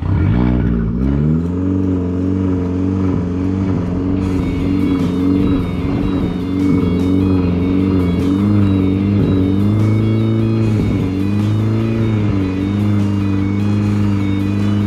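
Car engine running hard: it revs up over the first second, then holds at high revs with brief dips and recoveries every couple of seconds, as with throttle lifts or gear changes. Music plays over it.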